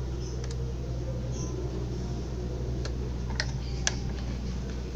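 A few light clicks and taps from handling parts of a washing machine's spin dryer during repair: one about half a second in, then three close together near the end. A steady low hum runs underneath.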